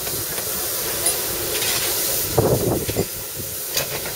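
Standing narrow-gauge steam locomotive hissing steadily as steam escapes, with a few brief louder sounds about two and a half seconds in.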